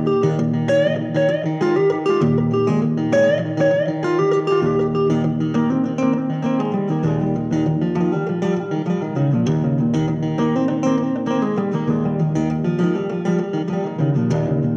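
Acoustic guitar with a capo played solo in an instrumental break: a picked bass line under a repeating higher riff with short upward slides.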